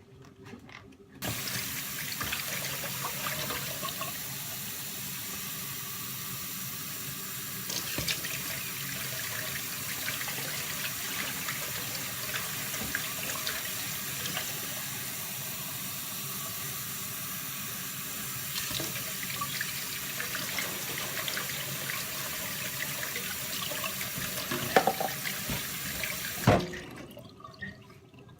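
Water running from a tap in a steady rush, turned on suddenly about a second in and shut off near the end with a couple of knocks.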